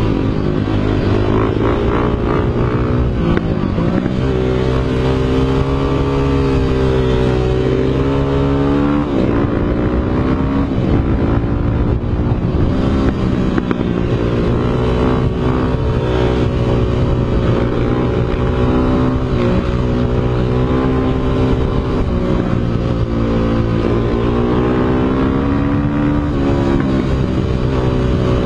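Dirt bike engine running hard under way, its pitch climbing and dropping several times as it revs up and eases off.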